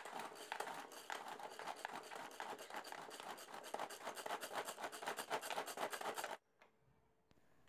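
Hand-pulled cord mini chopper chopping tomatoes: the cord is pulled repeatedly, spinning the blades inside the bowl with a fast, even run of scratchy clicks. The sound cuts off suddenly about six seconds in.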